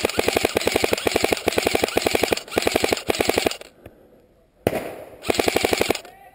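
Airsoft rifle firing full-auto bursts of rapid, evenly spaced shots, about fifteen a second: a long burst with a brief break in it, then a pause, a single sharp crack, and a short last burst.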